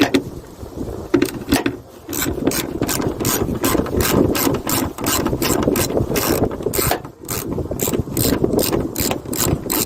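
Socket ratchet with a 13 mm socket clicking in quick, even strokes, about three to four clicks a second, as hood-hinge bolts are loosened, with a short break about seven seconds in.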